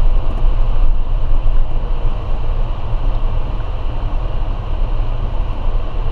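Vehicle driving on a snow-covered track: a steady low engine and drivetrain rumble with tyre noise over packed snow.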